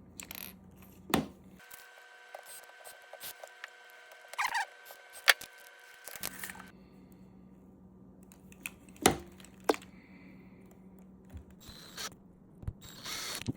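Scattered clicks and short scrapes of a drill bit and tools being worked against a plastic action figure while a stripped screw is drilled out.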